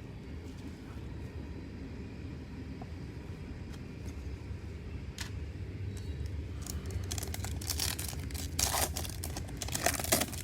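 Foil wrapper of a trading-card pack crinkling and tearing open, with scattered crackles that come thick and loudest in the last few seconds. Under it, a steady low rumble of road traffic.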